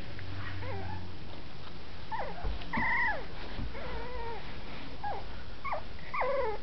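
Dachshund puppies whimpering: a string of short, high whines, most of them falling in pitch, beginning about two seconds in.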